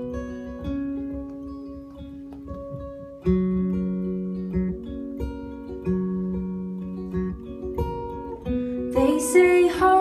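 Acoustic guitar played live, picking a slow introduction of single notes and chords that ring out and change about every second. A woman's singing voice comes in near the end.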